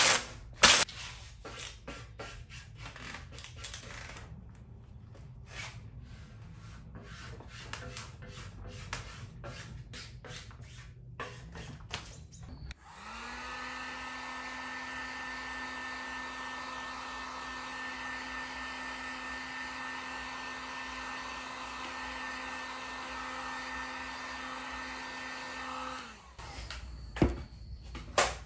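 Vinyl wrap film crackling and rustling as it is handled and smoothed over a metal skid plate. About 13 seconds in, a Warrior handheld heat gun switches on and runs with a steady fan hum for about 13 seconds, heating the carbon-fibre vinyl to stretch it over the plate's curves, then switches off.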